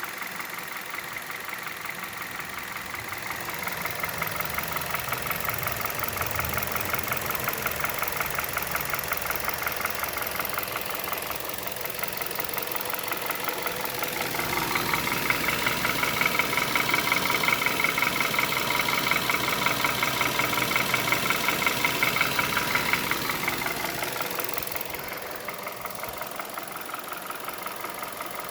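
Hyundai Solaris's G4FC 1.6-litre four-cylinder engine idling warm with a rapid, regular knocking that a new timing chain, tensioner and cam phaser have not cured; the owner feels it comes from the top of the engine. The knocking grows louder twice and falls back.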